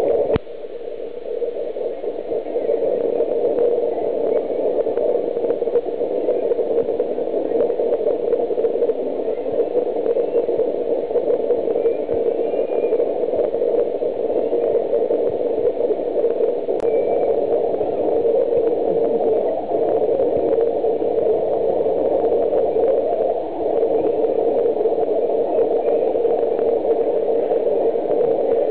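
Steady, unbroken noise, a constant low rush like fan or recorder hiss, with no animal calls.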